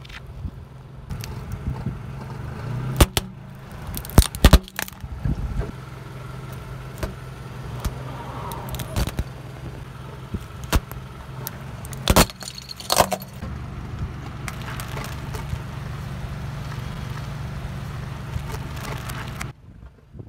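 Lexus SUV's engine running steadily at low speed while its tyre rolls over plastic toys and crushes them. Several sharp cracks and snaps of breaking plastic come in two clusters over the engine hum.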